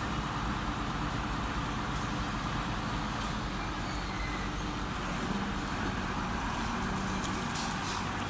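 TCM 7-ton forklift's engine running steadily as the forklift drives and turns.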